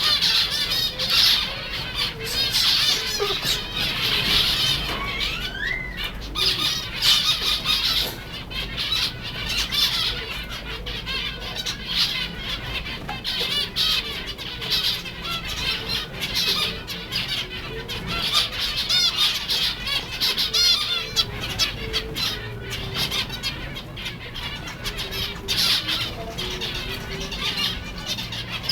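A flock of zebra finches calling constantly, a dense chatter of many short, overlapping calls.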